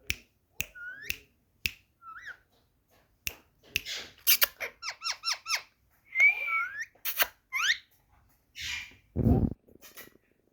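Pet parrot giving short whistled calls and squeaks that glide up and down in pitch, with sharp clicks in between; a quick run of five chirps about five seconds in, and a short low rumble about nine seconds in.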